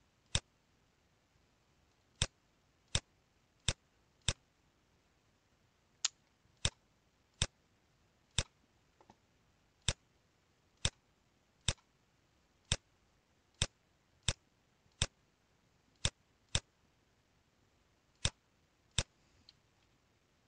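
Computer mouse button clicking: about twenty sharp single clicks, spaced irregularly from half a second to about two seconds apart.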